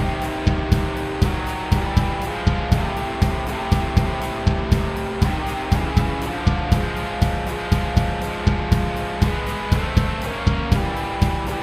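Instrumental music: held chords that change every couple of seconds over a steady beat of about two low hits a second, with no singing.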